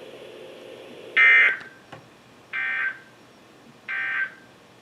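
Weather radio SAME digital data bursts: three short buzzy bursts about a second and a half apart, the first the loudest, over a faint radio hiss. Coming right after the spoken statement, they are the end-of-message code that closes a weather radio alert.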